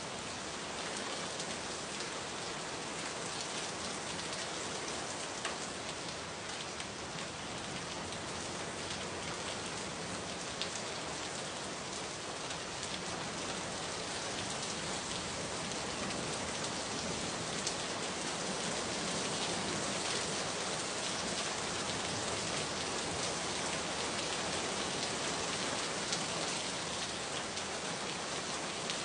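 Steady rain falling: an even hiss with many fine drop ticks, growing slightly heavier in the second half.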